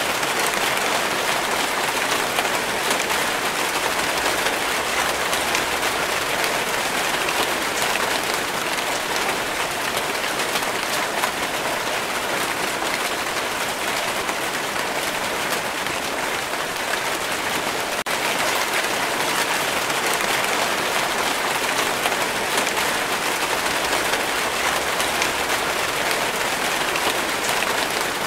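Steady rainfall: a dense, even hiss made of countless small drop impacts, unchanging throughout.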